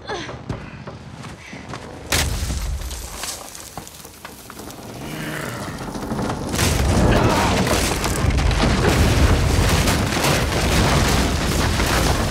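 Movie fight-scene sound effects. A sudden heavy impact comes about two seconds in, then from about seven seconds a long, loud low boom with dense crashing on top.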